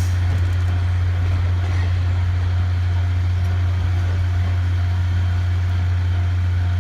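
Diesel railcar engine idling: a steady, low hum that does not change.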